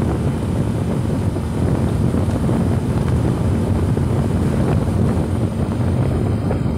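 Steady low rumble of wind buffeting the microphone on a moving vehicle, with road noise underneath.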